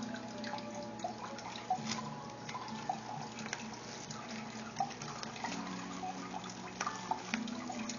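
Steady trickling and dripping water over a low, even hum, with scattered small clicks and crinkles of bubble wrap and plastic straws being handled.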